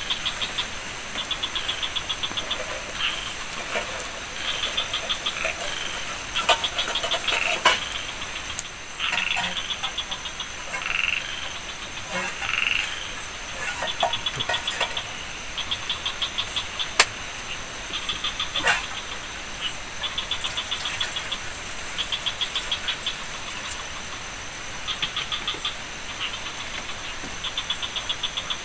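Frogs calling: a train of rapid clicking croaks about a second long, repeating every second or two over a steady high-pitched insect drone, with a few sharp knocks in between.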